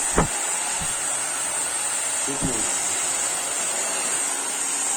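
Taiff hair dryer running steadily with a freshly replaced motor bearing: an even rush of air with a high whine and no rattle or vibration. A light knock comes just after the start.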